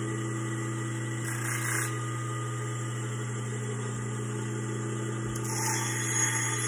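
Bench grinder motor running with a steady hum, with two short grinding bursts, about a second and a half in and again near the end, as a stainless steel piece is pressed against its abrasive wheel.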